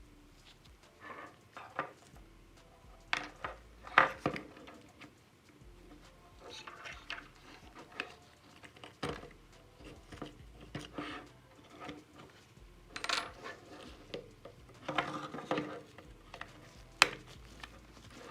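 Small metal parts and tools clinking and tapping on a hard work surface as a diecast model car is handled and worked on: irregular light clicks and knocks, with sharper single hits about four seconds in and near the end.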